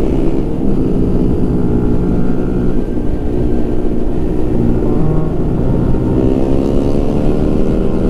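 Benelli TNT 135's small single-cylinder four-stroke engine running under way, its pitch dipping and climbing again as the throttle and road speed change.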